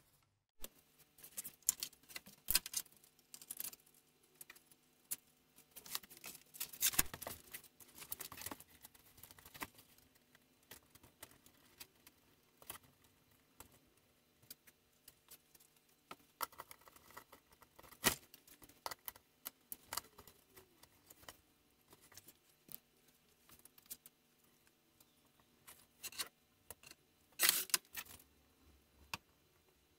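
Handling noise from assembling a softbox and its light stand: irregular clicks, taps and short rustles of parts being fitted and adjusted, over a faint steady hum.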